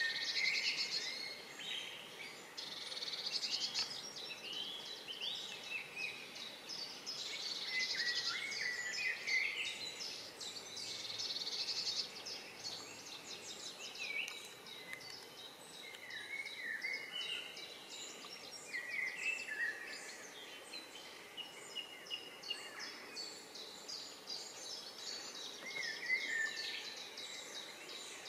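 Songbirds singing in the riverside trees, several overlapping songs of quick chirps, short glides and rapid trills, over a steady background hiss.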